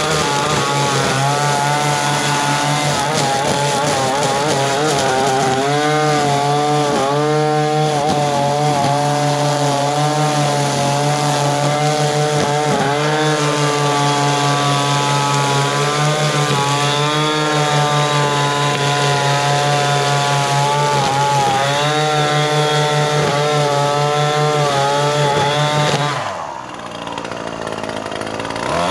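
Echo 2620T two-stroke string trimmer running at high throttle while cutting grass, its engine pitch wavering as the load changes. Near the end the throttle is let off and the engine drops to idle for a couple of seconds, then revs back up.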